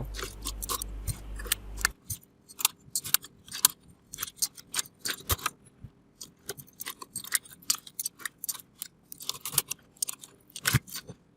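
Irregular sharp plastic clicks and clacks of PBT keycaps being pulled off a mechanical keyboard's switches, several a second.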